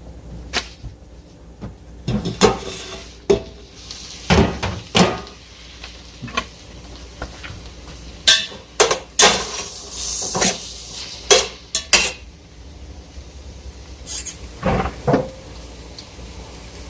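Cookware and utensils clanking at the stove: irregular metal knocks and clinks on a cooking pot, with a short hiss about ten seconds in.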